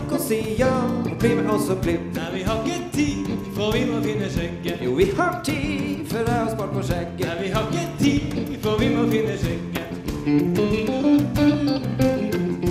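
Live band music, with electric guitars to the fore in a bluesy passage.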